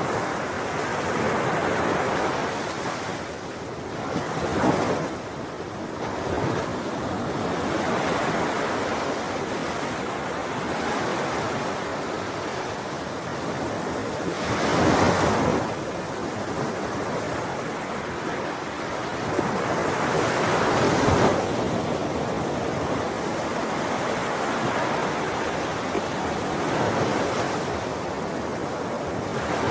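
Sea waves breaking and washing on a shore, a continuous surf that swells and ebbs, with louder breakers about 5, 15 and 21 seconds in.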